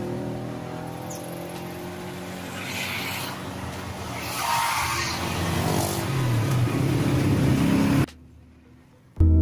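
A workshop machine motor running steadily, with two spells of hissing noise over it, stopping abruptly near the end; background music starts just after.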